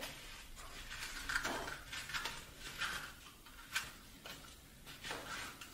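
A cut-open cardboard toilet paper tube being rolled tighter by hand: faint, irregular rustling and crinkling of the cardboard, with a few small clicks.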